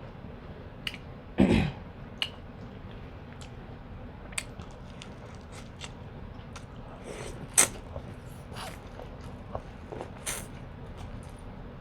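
Close-miked eating: chewing and biting, with many small wet mouth clicks and smacks. A louder, brief thump comes about a second and a half in.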